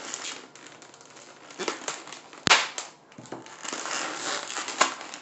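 Hands handling and twisting inflated latex modelling balloons: crinkling rubs and crackles, with a sharp click about two and a half seconds in and another near the end.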